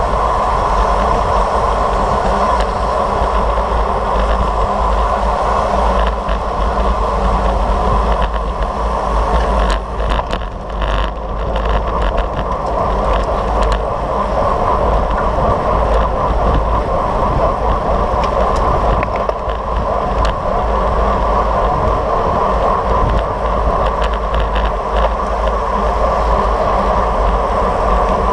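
Wind and road noise rushing over a road bike's camera microphone while riding at speed in a pack of cyclists: a steady, loud rumble and hiss that eases briefly about ten seconds in.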